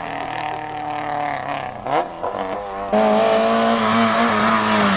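Rally car engines running hard: a car's engine note climbs and dips as it revs through a gear change about two seconds in. Then a much louder car comes close at full throttle, its engine steady and high with a hiss of tyres and wind, and its pitch falls as it lifts off near the end.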